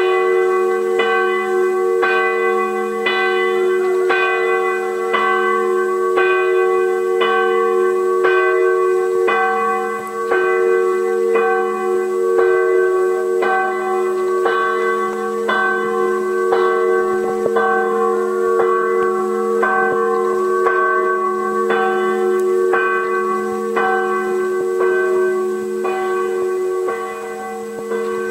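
Church bells ringing steadily, striking about twice a second over the lingering hum of their tones.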